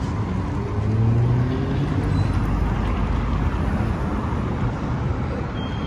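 Steady road traffic noise: an even hum of vehicles running along the street.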